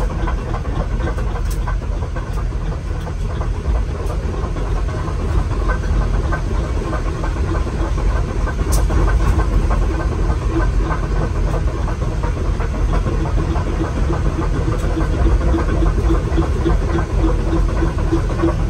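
Cat 313 GC excavator's diesel engine running steadily as the machine travels on its tracks, heard from inside the operator's cab, with a steady tone through the engine drone.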